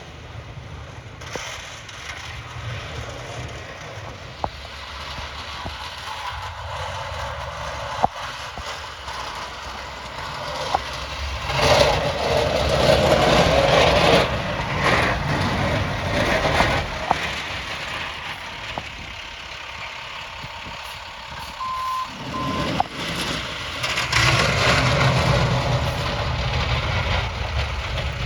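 Snowplow trucks running and driving past, their engine and road noise swelling twice. A truck's reversing beeper sounds briefly in between.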